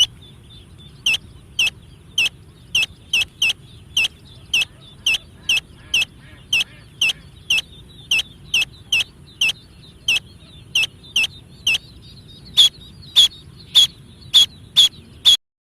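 Chicken calling: a short, high call repeated about twice a second, louder near the end, then cutting off suddenly.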